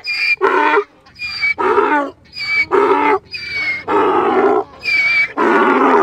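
Donkey braying in a run of hee-haws, about one a second: each a short thin squeal on the in-breath followed by a longer, louder, lower honk on the out-breath.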